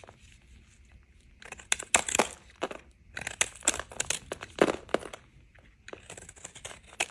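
A knife cutting through dry bar soap: short runs of crisp crackling and crunching, in several strokes after a quiet first second or so.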